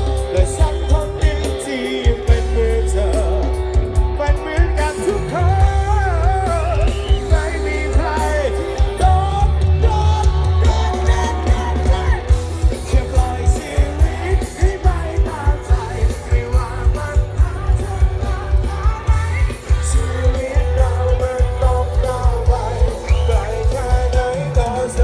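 Live rock band playing loudly through a concert PA, with a singer over a steady pounding drum and bass beat, heard from within the crowd.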